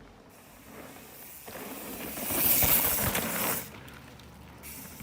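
Rush of knobby mountain-bike tyres and wind on dirt trail, swelling from about a second and a half in, loudest for about a second with a few low thumps, then cutting off sharply.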